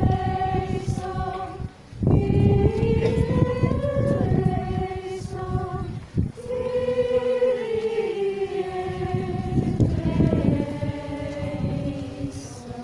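A group of people singing a hymn together, with long held notes in phrases broken by short breaths about two and six seconds in. Wind rumbles on the microphone underneath.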